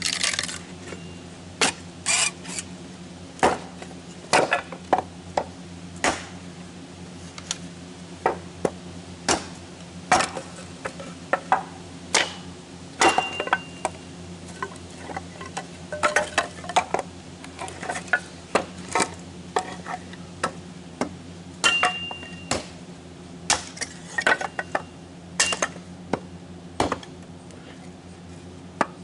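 Kindling being chopped from wood scraps: sharp, irregular chops and knocks, one or two a second and sometimes in quick clusters, with split sticks clattering down. A steady low hum runs underneath.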